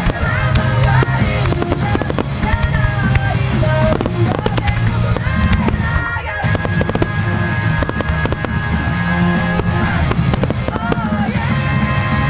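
Fireworks shells bursting and crackling in quick succession over loud music.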